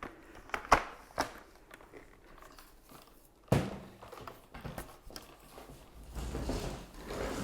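Handling sounds from a new cordless vacuum cleaner being set up and looked over: a few light clicks of its plastic parts, a louder knock about three and a half seconds in, then a low rustling rumble near the end.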